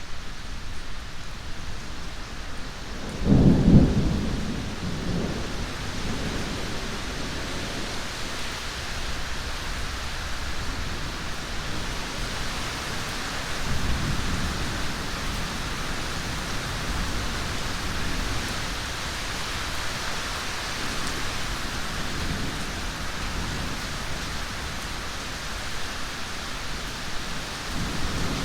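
Steady heavy rain with a loud clap of thunder about three seconds in that rumbles off over a few seconds, and a fainter roll of thunder about halfway through.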